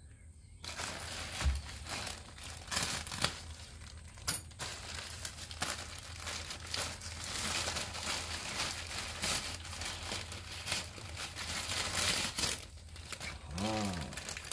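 Plastic poly mailer being handled and ripped open by hand: continuous irregular crinkling and rustling with tearing, starting about half a second in.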